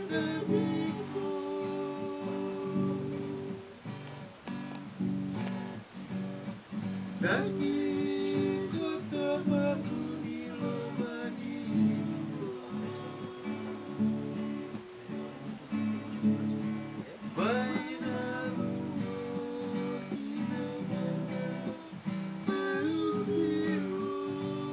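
Twelve-string acoustic guitar strummed and picked steadily, with a man's voice singing along at times.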